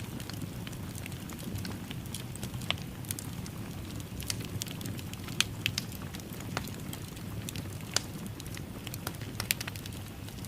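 Wood fire in a fireplace crackling, with a steady low rumble of the flames and frequent sharp, irregular pops and snaps.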